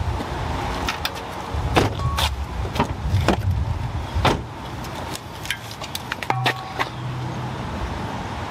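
An SUV's door being handled and pushed shut: a run of clicks and knocks over a low steady rumble, the loudest knock about four seconds in. A short electronic tone sounds about two seconds in and again, longer, about six and a half seconds in.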